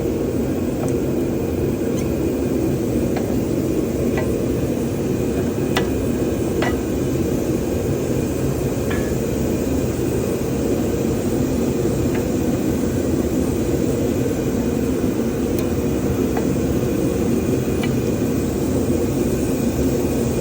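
A steady low rumble with a few faint, light clicks scattered through it.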